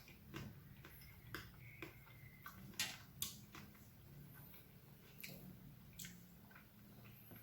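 Faint, irregular crisp crackles of a chocolate-coated monaka wafer ice cream being bitten and chewed, a dozen or so small cracks with near silence between.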